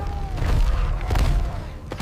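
Deep booming rumble with three sharp thumps, the first about half a second in, the last near the end.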